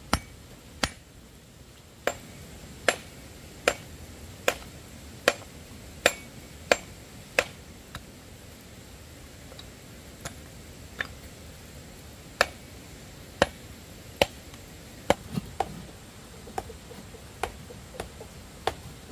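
Repeated sharp strikes of a hand tool on a hard object, about twenty in all. They come at an even pace of a little more than one a second for several seconds, then lighter and less regular.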